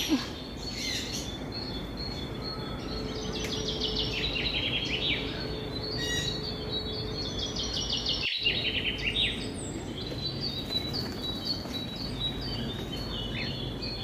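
A chorus of birds calling at once: many quick runs of short, high chirps overlapping one another throughout.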